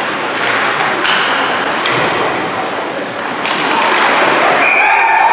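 Youth ice hockey game: a few sharp clacks of sticks and puck over steady crowd chatter in the rink. A held tone starts near the end.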